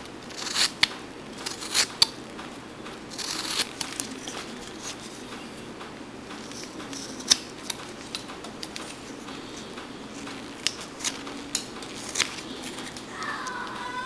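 Whittling knife slicing chips from a wooden carving: irregular sharp snicks and short scrapes as the blade cuts through the wood.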